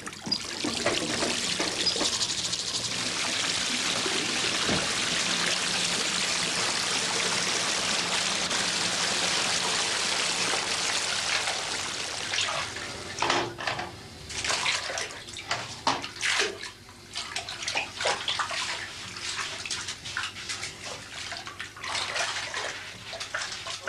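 Water running into a bathtub from the tap in a steady rush. About halfway through, it gives way to irregular splashing and sloshing as someone moves about in the bath water.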